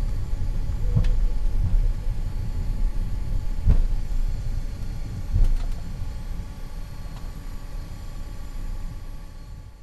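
Cockpit noise of a BAe 146 four-engine regional jet taxiing after landing: a steady low rumble from the engines at ground idle and the rolling gear, with a few low thumps. The noise fades out near the end.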